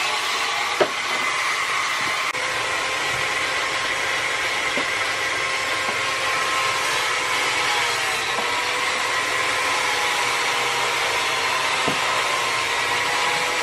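Small electric rotary tool running with a steady whine while sanding wood, its pitch wavering slightly in the middle. A sharp click about a second in.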